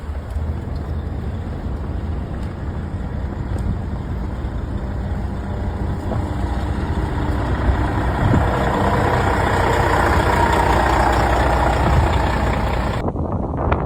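Heavy truck engines running steadily with a low rumble. A rush of noise swells and fades in the second half, and the sound cuts off sharply near the end.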